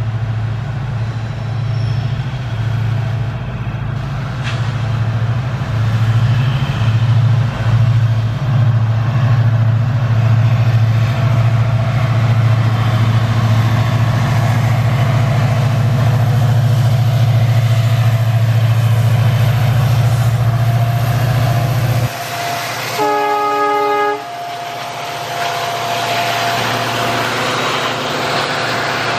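EMD WDP-4 diesel locomotive running past with a passenger train. Its engine makes a steady low drone that stops abruptly about 22 seconds in. A short train horn blast sounds about a second later, and the coaches follow, rolling past with wheel-on-rail noise.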